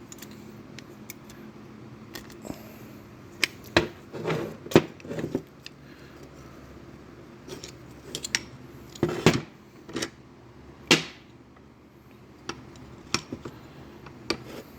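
Scattered metal-on-metal clicks, clinks and taps of hand tools against a piston and connecting rod while working a stuck full-floating wrist pin out, with one ringing clank about eleven seconds in.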